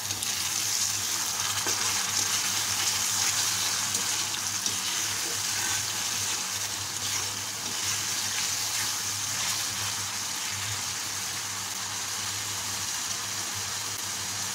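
Onion and spice paste (masala) sizzling steadily in hot oil in a wok just after a splash of water, a little louder in the first few seconds, while a spatula stirs it. The masala is being fried down until the oil separates.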